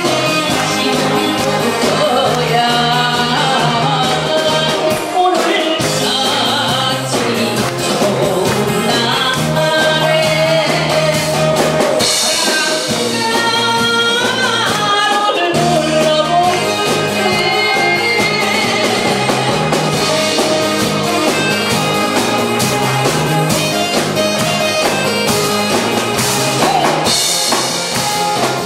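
A woman singing a Korean trot song through a microphone and PA, over an amplified backing band with a steady drum-kit beat.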